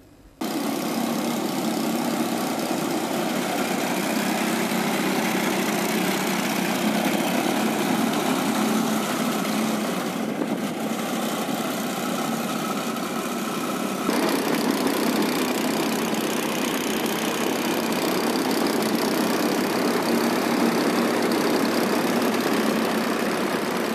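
Small 100 cc engine and propeller of a homemade airboat running steadily, the sound shifting abruptly about fourteen seconds in.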